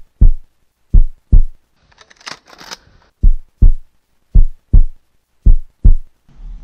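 Heartbeat sound effect: slow, loud, low lub-dub thumps, one pair a little more than once a second. A short hiss of noise cuts in about two seconds in, and a low rumble starts near the end.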